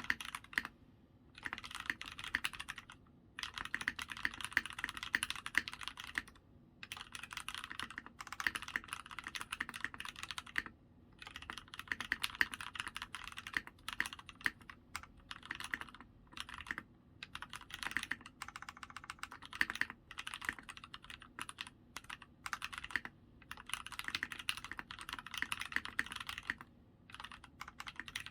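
Typing on a POM Sirius 60% mechanical keyboard with lubed Gateron Cap Milky Yellow linear switches, an FR4 plate, GMK keycaps and case foam: quick runs of keystrokes broken by short pauses every few seconds.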